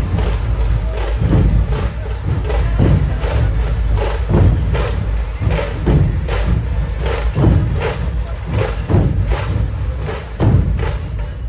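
Loud procession music from a large street sound system, with a heavy, bass-laden beat struck several times a second.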